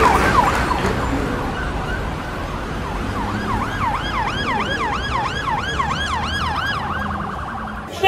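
A siren sweeping quickly up and down in pitch, about three sweeps a second, over a steady rushing noise. It grows clearer about three seconds in.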